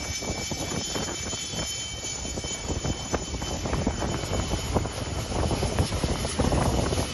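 Business jet taxiing, its turbofan engines running with a steady high whine over a low rumble.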